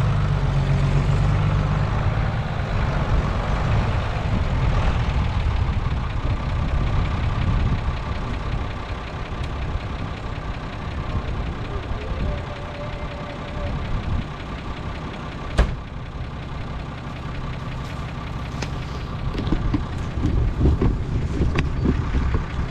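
Fendt Favorit 611 tractor's diesel engine running steadily, louder in the first few seconds and easing off after, with a single sharp click about two-thirds of the way through.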